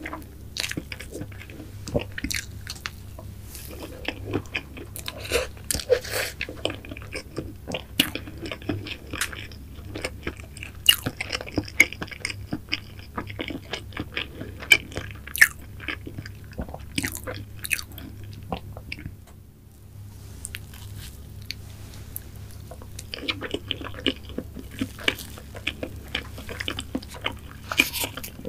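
Close-miked chewing of mango cream cake (soft sponge, whipped cream and mango pieces): a dense run of small wet mouth clicks and smacks, with a short pause about two-thirds of the way through.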